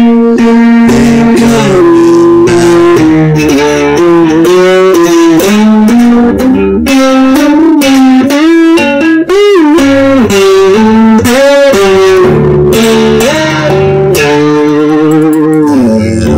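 Music: a lead guitar playing bent, wavering notes over a steady bass line.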